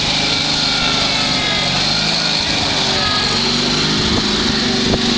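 Riding lawn mower engine running steadily, with a short sharp knock near the end.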